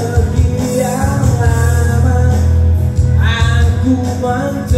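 A man sings a slow Indonesian pop ballad into a microphone, holding long wavering notes over recorded backing music with a steady bass line. About three seconds in, his voice rises into a new phrase.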